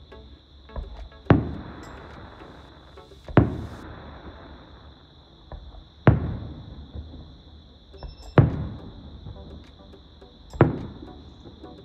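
Aerial fireworks bursting overhead: five loud bangs about two seconds apart, each dying away in a short rolling echo. A fainter pop comes shortly before most of them.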